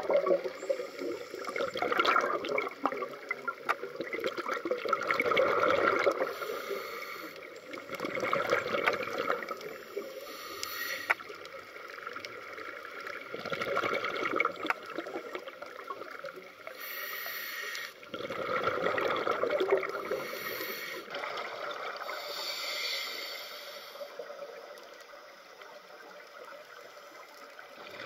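Scuba regulator breathing underwater: breaths drawn through the regulator and exhaled bubbles gurgling past, recurring every few seconds and growing fainter near the end.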